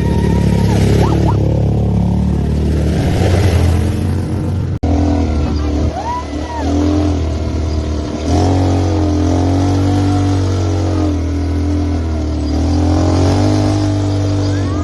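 ATV engine running and revving, its pitch rising and falling, with an abrupt break about five seconds in.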